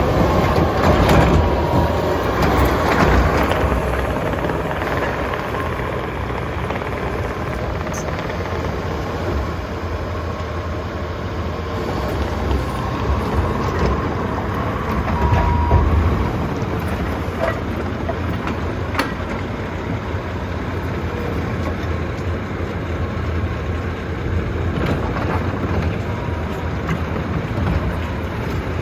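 Bobcat T740 compact track loader working, its diesel engine running steadily, with a few short sharp clanks scattered through.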